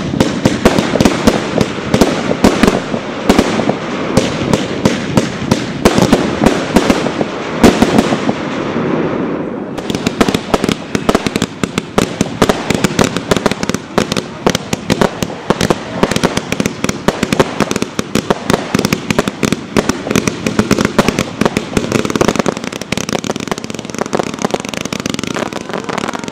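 Aerial fireworks display: a rapid, continuous barrage of shell bursts and crackling, turning into sharper, denser crackle about ten seconds in.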